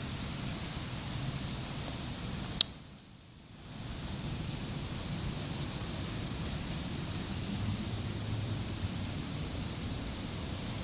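Steady background hiss with a single sharp click about two and a half seconds in. Just after the click the hiss briefly drops away for about a second.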